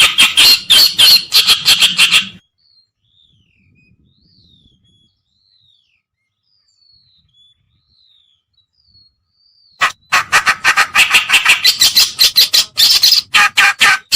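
Kerakbasi (reed warbler) song used as a bird lure: loud, rapid harsh chattering notes, which break off about two seconds in. A long quiet stretch follows, with only faint thin whistled notes sliding up and down, then the loud chattering starts again near the end.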